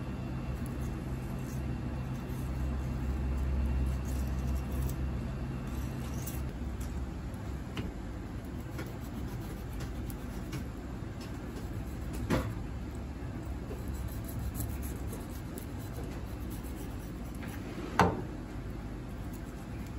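A steady low machine hum that stops about six seconds in, under faint scraping of a knife filleting a fish on a plastic cutting board. Two sharp knocks land on the board, the second and louder one near the end.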